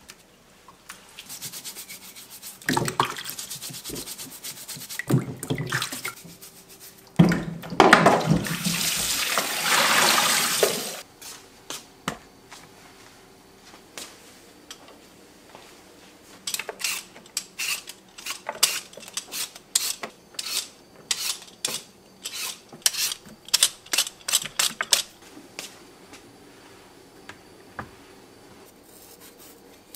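Water running from a kitchen tap for about ten seconds, with rubbing as root vegetables are rinsed; it stops suddenly. Later comes a run of light, quick clicks and taps.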